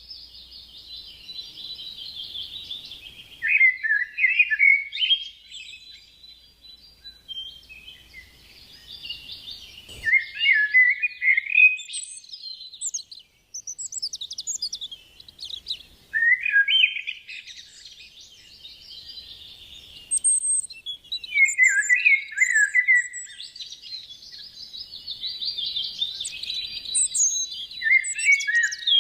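Birds chirping and twittering in busy, fast phrases that come and go every few seconds.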